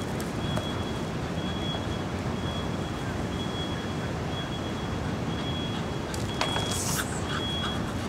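A vehicle's reversing alarm beeping about once a second, a short high tone each time, over a steady low rumble. A brief hissing, rattling burst about six and a half seconds in.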